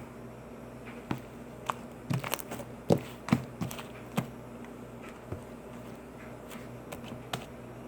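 Sticky homemade slime being kneaded and pulled by hand, giving a scatter of sharp snapping pops and clicks, busiest in the first half, over a steady low hum.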